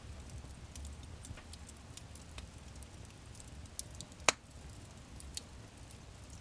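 Wood fire crackling in a fireplace: scattered small pops and ticks over a low rumble, with one sharp, loud pop about four seconds in.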